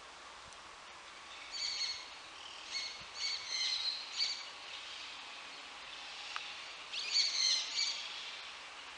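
Birds chirping: clusters of short, high chirps, one spell starting about a second and a half in and another near the end, over a steady faint outdoor hiss.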